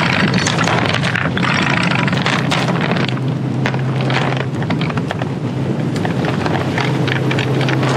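Sailboat's inboard diesel engine running with a steady low drone, with scattered clicks and knocks and wind buffeting the microphone.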